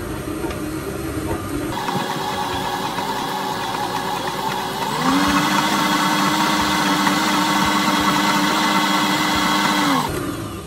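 Stand mixer motor running with its dough hook kneading a stiff, heavy dough. About five seconds in its pitch rises to a higher steady whine, and it winds down and stops just before the end.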